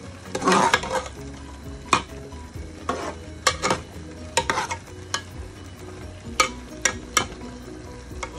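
A steel ladle stirs minced mutton and onions in a metal cooking pot, scraping and knocking against the pot about a dozen times, loudest about half a second in. The keema sizzles steadily underneath.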